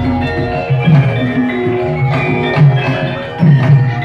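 Javanese gamelan music: low drum strokes in a repeating pattern under the ringing tones of metal-keyed instruments playing the melody.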